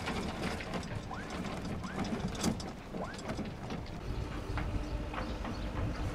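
Anchor chain paying out through the bow windlass during a stern-to mooring, a run of irregular clicks and clatters with a few short squeaks. About four seconds in, a steady low rumble of the yacht's engine comes in.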